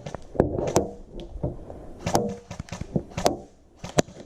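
Irregular sharp cracks and knocks of an airsoft skirmish: guns firing and BBs striking hard surfaces, a dozen or so snaps at uneven intervals with several louder ones spread through.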